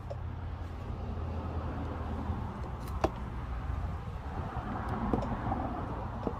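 A few light metallic clicks and one sharper tap about three seconds in, as the yoke and U-joint of a Jeep TJ rear drive shaft are handled and turned on a wooden block, over a steady low background rumble.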